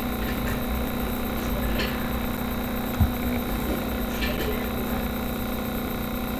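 Steady background hum and hiss with a constant low tone and a faint high whine, broken by a few faint clicks and one low thump about three seconds in.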